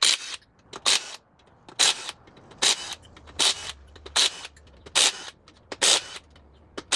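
Hand ratchet backing out the oil pump's bolts, its pawl clicking in a short burst on each back-swing: about eight bursts, a little under a second apart.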